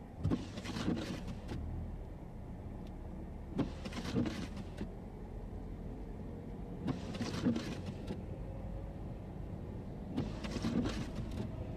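Low steady rumble of trucks and cars crawling along a snow-covered highway, with a short burst of noise about every three seconds.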